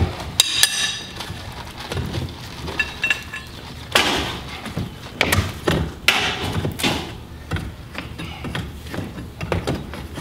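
Pry bar and hammer working a nailed-on garage door weather strip off the door jamb: irregular sharp knocks and metallic clinks, with a short metallic ring near the start.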